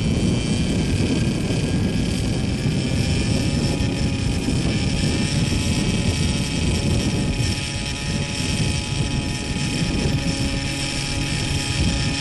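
Gas-powered JR Ergo RC helicopter's two-stroke engine, fitted with a B.H. Hanson exhaust, running steadily at low speed on the ground, its main rotor turning.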